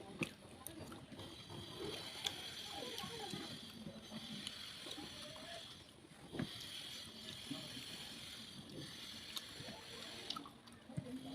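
Wet eating sounds: rice and fish curry squelching and being chewed, with many small clicks and smacks.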